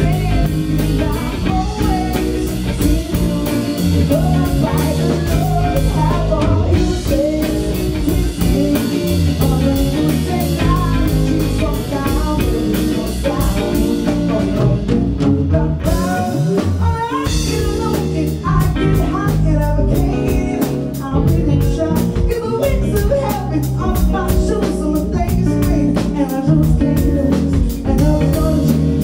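Live band playing: electric guitars over a drum kit with a steady cymbal beat, which thins out briefly about halfway through.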